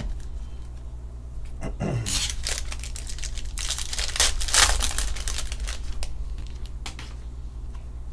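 A foil trading-card pack being torn open and crinkled by hand, in two spells of crackling: a short one about two seconds in and a longer, louder one around four to five seconds in.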